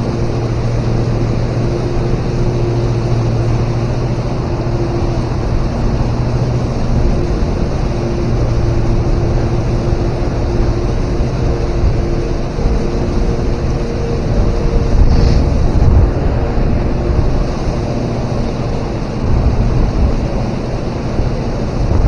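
Steady rush of water pouring over a low river dam, with wind buffeting the microphone and a faint steady hum underneath.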